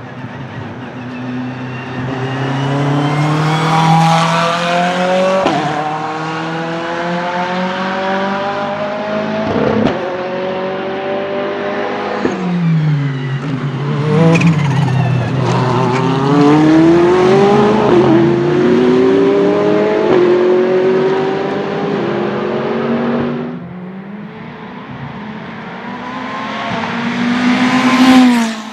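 Ferrari 488 GT3's 3.9-litre twin-turbo V8 accelerating hard, its pitch climbing through the gears with short drops at each upshift, then falling and rising again as it slows and pulls away. About 23 seconds in the sound cuts off suddenly, and another pass builds to its loudest point just before the end.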